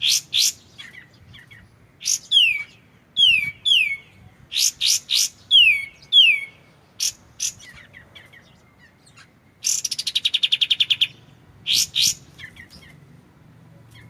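Kapas tembak (katem) songbird singing. It gives sharp chips and several clear whistled notes that sweep downward, then a fast rattling trill about ten seconds in.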